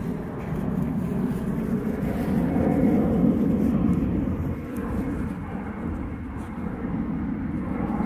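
Wind on the microphone: a steady low rumble that swells a little around three seconds in.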